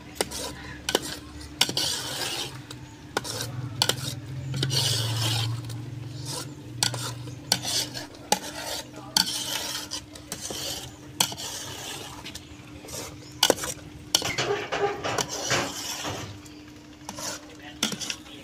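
Perforated metal spoon stirring and scraping thickening buffalo beestings milk around a metal pot, with irregular scrapes and clinks against the pot and a sizzle from the hot milk. The milk is being kept moving so that it dries into small crumbles rather than large lumps.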